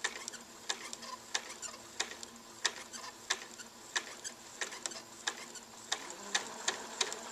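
Electric sewing machine stitching slowly along a curve: a sharp click with each needle stroke, about one and a half a second and a little quicker near the end, over a faint steady motor whine.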